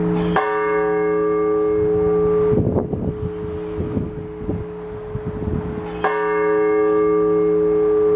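A large Orthodox church bell struck twice, about six seconds apart. Each stroke rings on into a long, steady hum that has not died away before the next. These slow single-bell strokes are a blagovest. Strong wind gusts buffet the microphone with an uneven rumble between the strokes.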